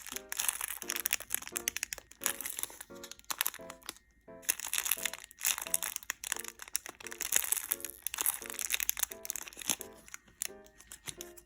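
Light background music of short, evenly paced notes, with crinkling and crackling of plastic packaging being handled.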